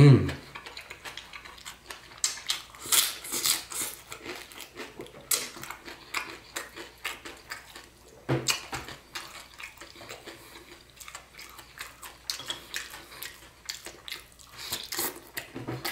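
A person eating fried phở noodles with beef and greens close to the microphone: irregular wet chewing and lip-smacking.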